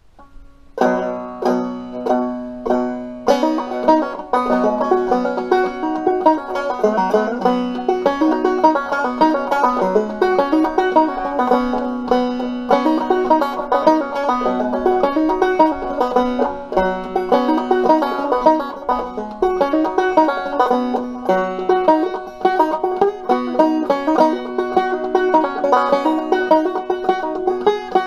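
Five-string banjo played clawhammer style in an open tuning (bBF#BC#): four separate chords struck and left to ring about a second in, then a quick, continuous run of picked notes over a steady low drone string.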